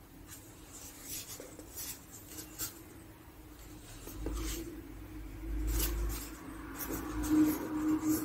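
Packaging being handled: scratchy rustling and scraping with scattered light clicks.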